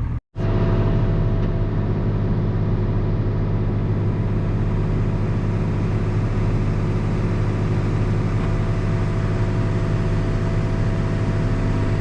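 Big John Deere farm tractor's diesel engine running steadily at an even speed. The sound cuts out for a moment just after the start.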